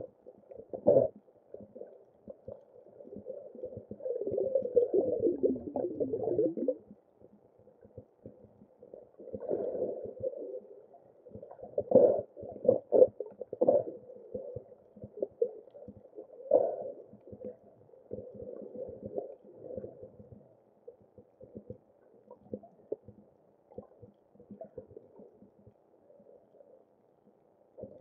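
Muffled underwater water noise heard through a camera's waterproof housing: irregular swishes and knocks, with a longer rushing stretch about four to six seconds in and a cluster of louder knocks around twelve seconds.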